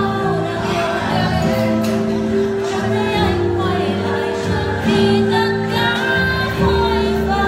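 A woman singing karaoke into a handheld microphone over a backing track with steady held notes, a second woman singing along with her.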